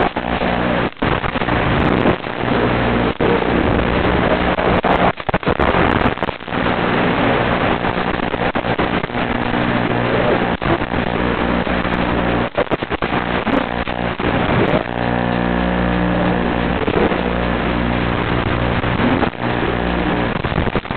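Static hiss and low buzz from an analog FPV video receiver's audio channel, steady, broken by many brief dropouts as the video link glitches, with the buzz stronger in the last few seconds.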